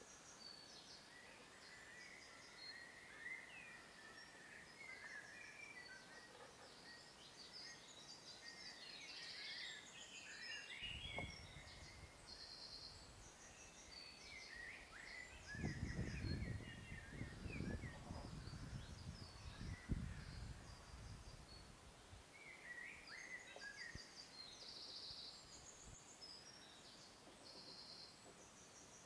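Small birds calling and singing on a wooded mountainside, scattered chirps and short buzzy trills. From about a third of the way in, a low rumbling noise on the microphone comes and goes for several seconds.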